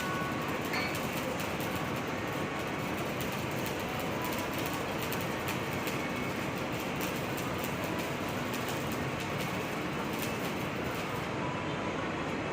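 Heavy machinery running: a steady mechanical rumble with faint scattered ticks, consistent with the excavator's diesel engine running.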